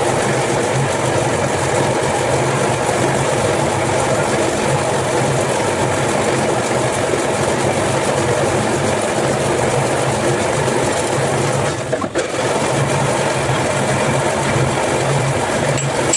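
A machine motor running steadily, with a brief dip in level about twelve seconds in.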